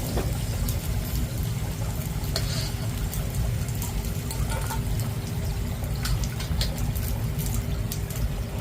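Prawn crackers deep-frying in hot oil: a steady sizzle with scattered sharp crackles.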